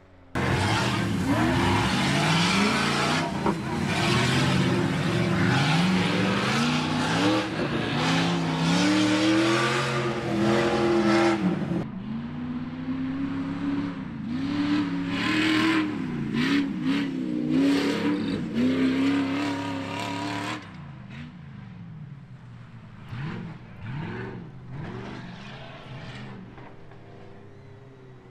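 Off-road race buggy engine revving hard over and over, its pitch swinging up and down as it climbs. After about twenty seconds the revving drops to a fainter, more distant level.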